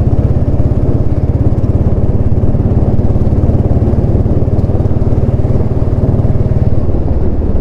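Royal Enfield Classic single-cylinder engine running steadily through a loud, illegal aftermarket exhaust: an even, rapid low thump with no revving.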